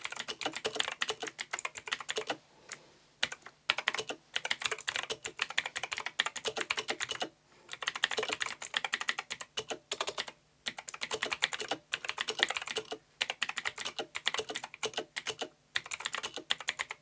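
Typing on an AUKEY KM-G12 mechanical keyboard with clicky AUKEY Blue switches: fast runs of sharp key clicks, broken by short pauses every few seconds.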